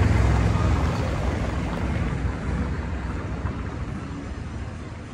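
A car driving past on cobblestones, its low engine hum dropping away about a second in and the tyre noise fading as it moves off.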